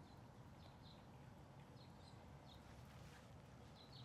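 Near silence: faint outdoor background hiss with a few brief, faint high chirps scattered through it.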